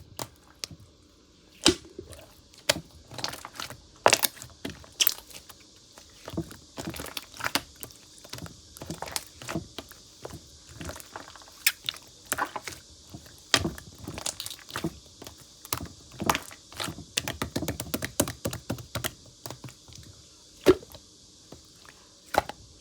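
Slime being squeezed and pressed by hand, giving off irregular clicks and crackles from trapped air, with a handful of louder sharp pops.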